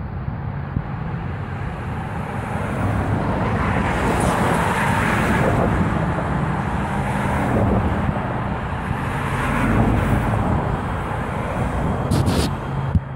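Road traffic on a multi-lane boulevard: cars passing close by in a steady, rising and falling rush, with a brief sharp click near the end.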